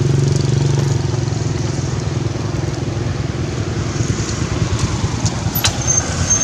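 A motor engine running steadily, a low rumble with a fast even pulse, a little louder in the first second. A sharp click and a brief high chirp come near the end.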